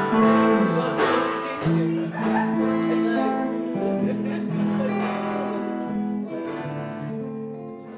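A live band of strummed acoustic guitar, electric guitar and keyboard playing the closing bars of a song, the last chord ringing and fading away near the end.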